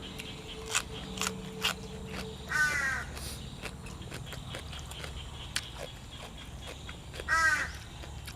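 Two short crow caws about four and a half seconds apart, each under half a second, over a steady background, with a few sharp clicks near the start.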